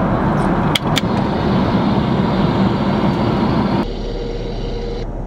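Steady airliner cabin noise in flight, with two sharp clicks about a second in. Near the four-second mark the noise cuts to a quieter, duller rumble with a faint steady hum for about a second.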